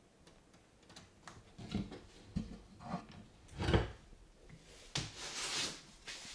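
An Argus monitor shifts its clawed feet and grips a hamster in a bathtub, making scattered knocks and scrapes. There is a louder thump a little past the middle and a short rasping scrape near the end.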